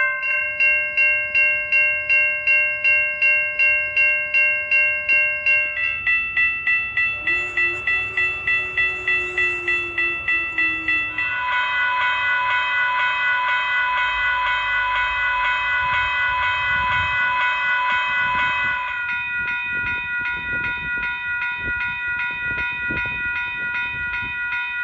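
A run of railroad crossing bells, heard one after another. First a Safetran Type 2 electronic crossing bell strikes steadily at about three to four strokes a second. It is followed by other crossing bells of different pitch, one ringing so fast it is nearly continuous, and near the end a Western Cullen Hayes crossing bell ringing rapidly.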